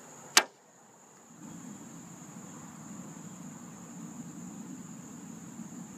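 Insects singing outdoors: one steady, unbroken high-pitched note. A single sharp click comes about half a second in, and a low rumble sets in after about a second and a half.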